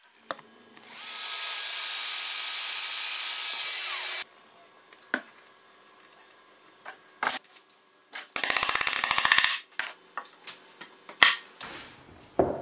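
Workshop work sounds: scattered knocks and clicks of parts and tools being handled, a steady hiss lasting about three seconds, and a fast, even rattling buzz for about a second some eight seconds in.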